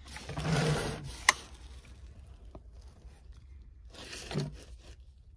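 Handling noise: a rustling scrape lasting about a second, then one sharp click. A fainter rustle with a brief low hum follows near four seconds in.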